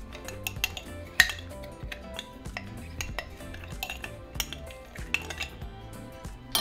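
Repeated sharp clinks and scrapes against a glass jar as thick mole paste is dug out of it into a blender cup, the loudest clink about a second in, over quiet background music.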